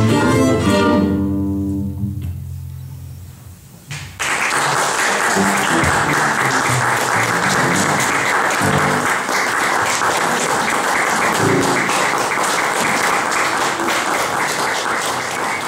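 A final sustained chord from an ensemble of violins and electric and bass guitars rings out and fades away over about three seconds. About four seconds in, an audience breaks into applause that carries on steadily.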